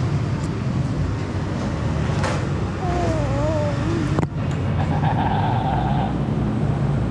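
Steady rumble of road traffic. A short wavering tone comes about three seconds in, a sharp click with a brief dip just after four seconds, and a steady tone lasting about a second near six seconds.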